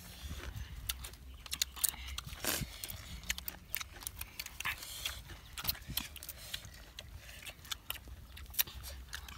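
Grilled clam shells clicking and knocking lightly against one another and the wire grill rack as they are picked up and handled, in scattered irregular clicks over a steady low rumble.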